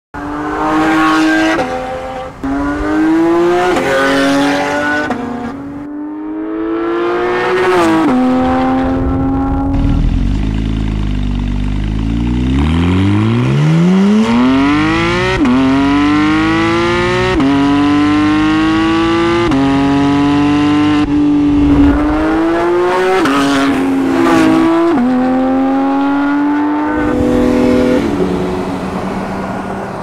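Porsche 991 GT3's naturally aspirated flat-six, breathing through an Armytrix valvetronic exhaust, accelerating hard through the gears: the pitch climbs and drops sharply at each shift, every couple of seconds. About a third of the way in it pulls in one long rising sweep from low revs before the shifts resume.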